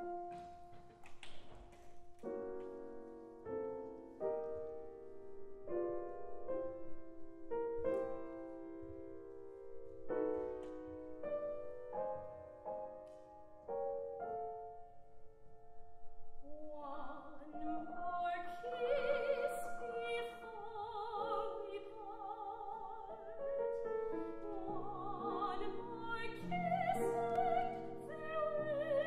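Grand piano plays a slow introduction, then about seventeen seconds in a woman's classical soprano-style voice enters, singing with a wide vibrato over the piano accompaniment.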